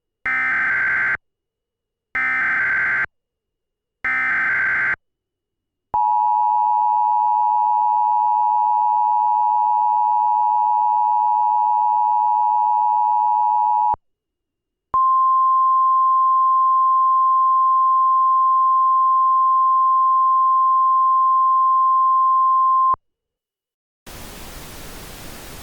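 Emergency Alert System broadcast tones: three one-second bursts of SAME header data screech, then the two-tone EAS attention signal held for about eight seconds. After a second's pause comes the single steady NOAA Weather Radio warning-alarm tone for about eight seconds, then a radio static hiss near the end.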